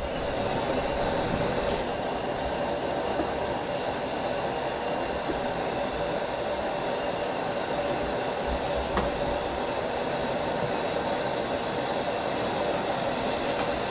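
Steady machine-like rumble and hiss with several constant tones running through it, unbroken and even in level, with a faint click about nine seconds in.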